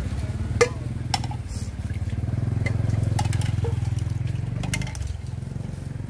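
A few sharp clinks of a ladle and spoons against bowls as seasonings are scooped into a stainless steel mixing bowl. Under them an engine runs with a low pulsing hum that swells in the middle and drops away about five seconds in.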